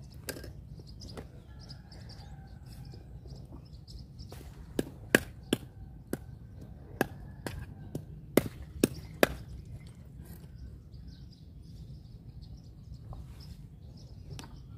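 A cleaver chopping through a striped catfish on a wooden chopping board: a run of about ten sharp chops starting about five seconds in and lasting some four seconds.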